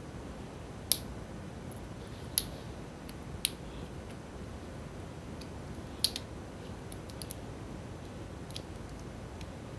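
A handful of short, sharp clicks, spaced irregularly, as a metal pick pries at the yellow plastic wrapping of a laptop CMOS coin battery to tear it open.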